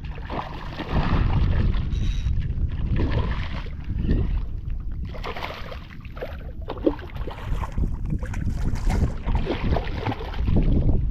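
Wind buffeting the microphone over water noise around a small fishing boat, rising and falling in uneven gusts, with one short knock about seven seconds in.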